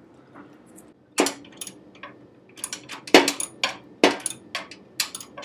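A nut driver clinking and knocking against the steel parts inside a table saw's cabinet as it is fitted onto the 90-degree blade-tilt stop bolt. There is one sharp knock about a second in, then a run of irregular metallic clinks.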